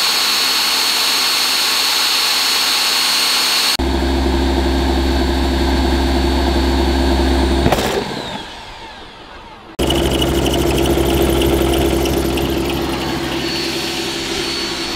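Corded electric drill running a hole saw into a van's steel side panel, steady and loud, changing sound suddenly about a quarter of the way in and dipping for a couple of seconds past the middle before starting up again. The hole saw is bouncing on the outer metal without cutting through, its teeth maybe a bit blunt.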